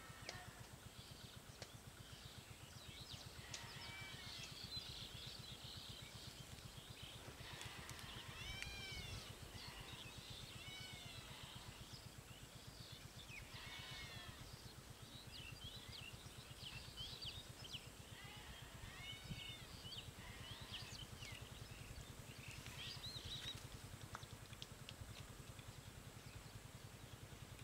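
Faint, high, arching animal calls, repeated every few seconds, over a low steady hum.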